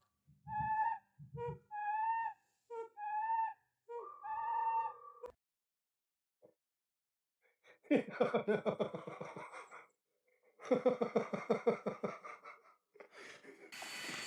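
A cat giving a run of short, pitched meows, followed after a pause by two harsh, rapidly pulsing bursts of about two seconds each.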